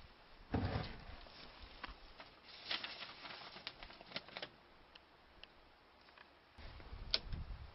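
Scattered clicks and light knocks of handling, with a dull thump about half a second in and a low rumble with a sharp click near the end.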